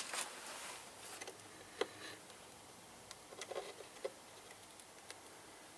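Faint scattered clicks and light handling noise from a paper paint strainer and plastic mixing cup as thinned paint is poured through the strainer into a spray gun's cup; the sharpest click comes right at the start, another about two seconds in.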